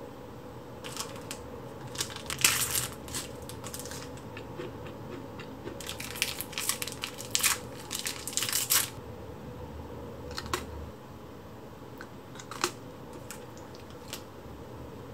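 Crinkling of thin clear plastic cookie wrappers being handled and torn open, in two spells of crackling, about two seconds in and again from about six to nine seconds, then a few small clicks.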